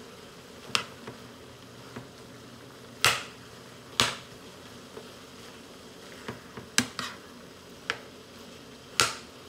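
A metal spoon clinks and scrapes against a skillet as chorizo fries, making a few sharp, irregular clicks over a low, steady sizzle.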